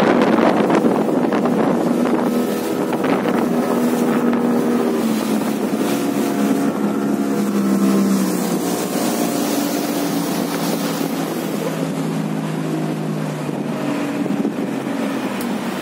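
Small motorboat's engine running under way over a steady rush of wind and water, its pitch settling a little lower about halfway through.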